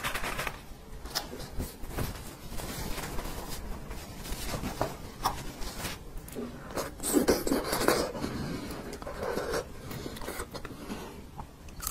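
Close-miked eating sounds: soft beef bone marrow being chewed and sucked, with irregular small clicks and wet squelches.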